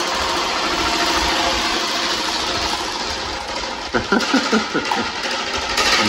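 Several electric desk fans running together: a steady rush of air from the spinning blades with an even motor hum.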